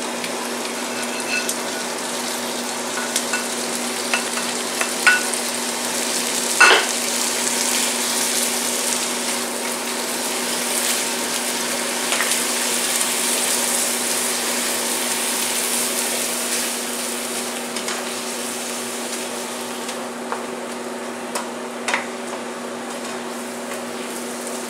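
Soy-milk gravy sizzling in a hot frying pan as it is poured over stir-fried mushrooms and vegetables and stirred in, with the spoon knocking and scraping against the pan now and then, loudest about seven seconds in. A steady low hum runs underneath.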